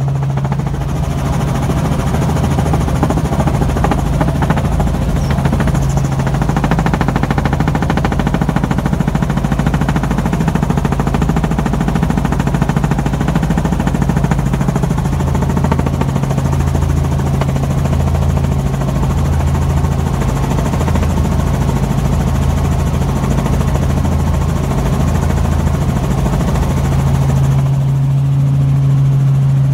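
Helicopter engine and rotor heard from inside the cabin: a loud, steady low drone with a fast, even beat of the blades.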